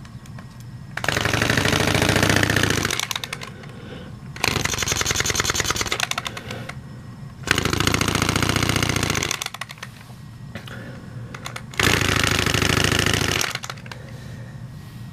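LEGO vacuum engine running in four spurts of about two seconds, each a fast, dense clatter of plastic parts, with quieter pauses between. Its valve piece smacks on every stroke.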